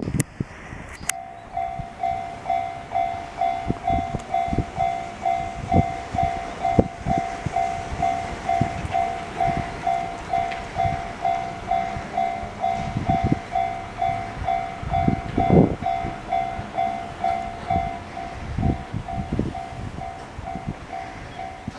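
Japanese level-crossing warning bell in the JR standard electronic tone, slightly high-pitched, starting about a second in and repeating a two-note ding about twice a second. Under it a train passes with low thumps from its wheels, loudest about 15 seconds in.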